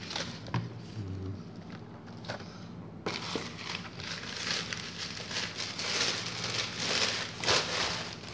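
Plastic bubble wrap being handled and unwrapped: a few light crinkles at first, then a steady dense crackling from about three seconds in.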